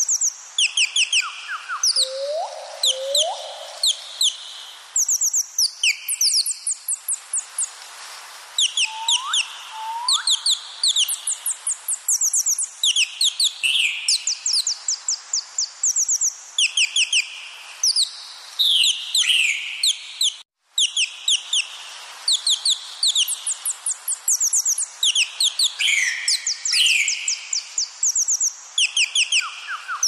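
Songbird calling: quick runs of high, rapid falling notes repeated throughout, with a pair of lower rising whistles twice, near the start and about nine seconds in. The sound drops out for a split second about twenty seconds in.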